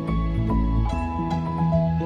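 Gentle background music with held notes that change every half second or so.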